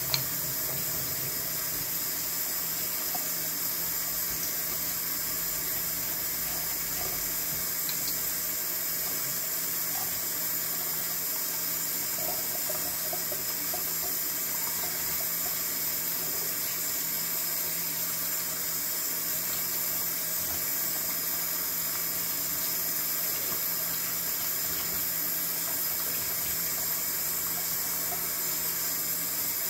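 Kitchen faucet running steadily into a stainless steel sink, the stream splashing over a whole raw bird being rinsed by hand. A single sharp click sounds right at the start.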